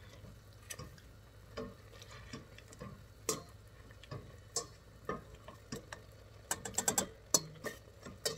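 Metal potato masher clinking and knocking against the bottom and sides of a stainless steel pot while mashing cooking blueberries to release their juice. Irregular sharp clicks, with a quick run of them about seven seconds in.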